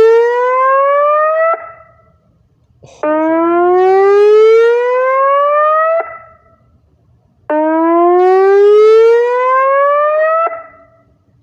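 DCA OmniRanger III siren speaker playing a synthesized whoop tone: a rising sweep about three seconds long that cuts off sharply, repeating with short gaps. The end of one sweep comes about a second and a half in, then two full sweeps follow. Each cut-off leaves a short natural echo fading away.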